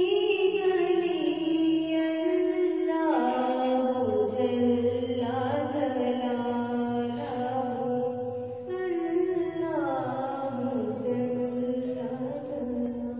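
A girl's voice singing a hamd, an Urdu devotional hymn in praise of God, in long drawn-out notes that slide down in pitch twice.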